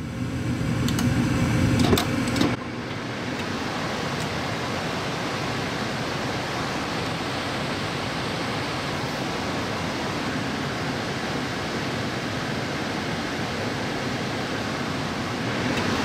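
Gas furnace burners running with a low rumble as the blower fan comes on; about two and a half seconds in the rumble stops abruptly as the pressure switch shuts the gas off, tripped by a cracked heat exchanger. The blower's steady rush of air carries on.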